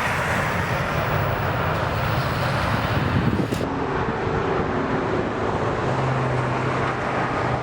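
Jet engines of an Airbus A320 airliner running, a loud steady rush of noise mixed with wind on the microphone. The sound changes abruptly about three and a half seconds in, losing its highest hiss.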